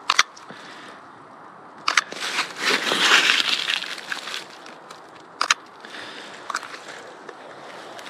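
Crunching and rustling of frost-covered dry grass and leaves, loudest for a couple of seconds in the middle, with a few sharp clicks scattered through.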